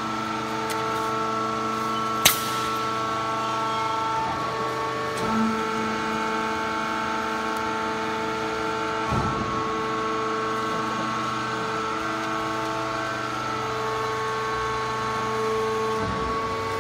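Hydraulic baling press running: a steady machine hum with several held tones that shift from time to time, and one sharp click a couple of seconds in.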